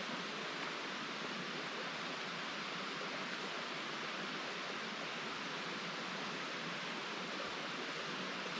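Steady, even rush of running water from a woodland creek, with no breaks or changes.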